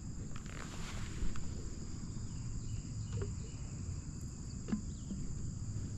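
Insects trilling steadily at a high pitch, with a few faint clicks.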